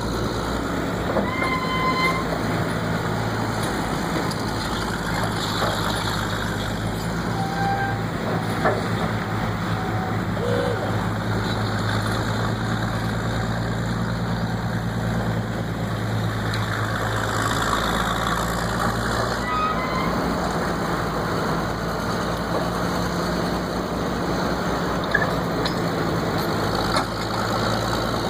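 Vintage heavy construction equipment working, its engines making a steady low drone, with a few brief higher tones over it in the first seconds.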